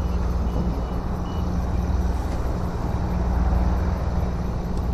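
A heavy engine running steadily: a low, even hum, with a few faint short high beeps in the first second or so.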